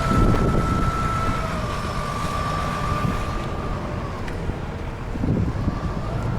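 A large forklift's engine running with a steady whine over a low rumble, the whine stepping down slightly in pitch twice. Wind buffets the microphone.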